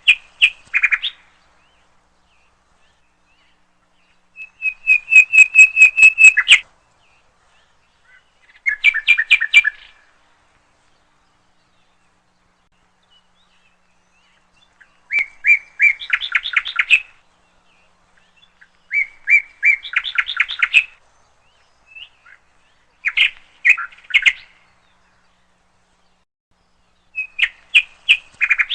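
A songbird singing in short phrases of rapid repeated notes, about seven phrases with pauses of a few seconds between them.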